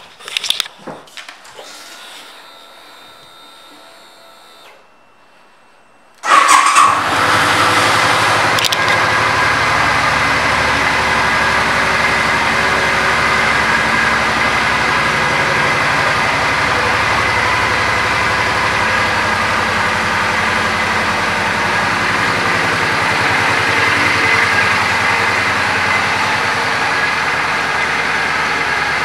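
A few faint clicks, then about six seconds in the 2006 Suzuki Boulevard C50T's 805 cc V-twin engine starts with a brief starter whine and settles into a steady idle.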